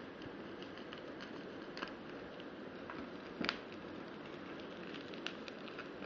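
Irregular small clicks and crackles over a steady hiss, with a sharper tap about three and a half seconds in and another just past five seconds.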